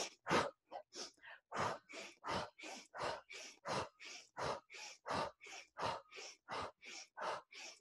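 Rapid rhythmic breathing close to a microphone: quick sniffing inhales through the nose alternating with forceful exhales through the mouth, about three breath sounds a second, with louder and softer strokes taking turns. It is a fast energizing breath exercise.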